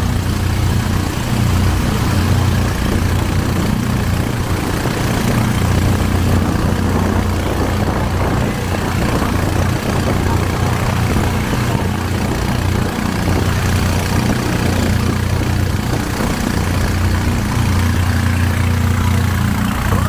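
A river boat's gasoline motor running at a steady speed, a constant low drone.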